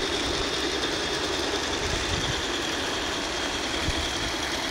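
Outdoor model train running along its track: a steady rumble with a faint high whine.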